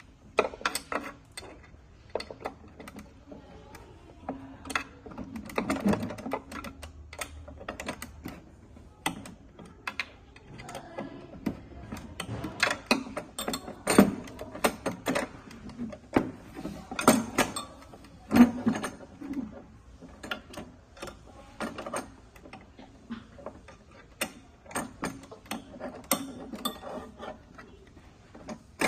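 Irregular clicks, taps and knocks of hand tools and metal parts: hex keys and screws being worked loose and parts handled during disassembly.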